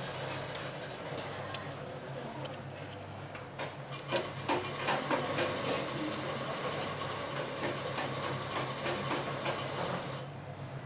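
Large tailor's shears snipping through blouse cloth in a run of crisp clicks, with the stiff fabric rustling as it is handled; the snipping and rustling stop about ten seconds in.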